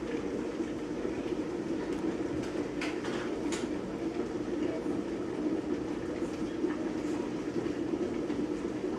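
Vacuum cleaner motor running with a steady drone, with a couple of light clicks of handling about three seconds in.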